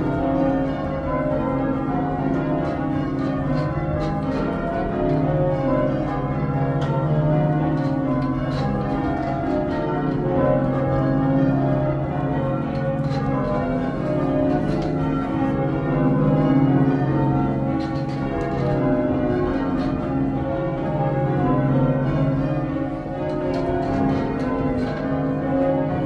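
Church bells change ringing: a ring of tower bells swung full circle, striking one after another in a continuous, even rhythm. The tenor has a newly fitted clapper that has yet to bed in. The bells are heard from the ringing chamber beneath them.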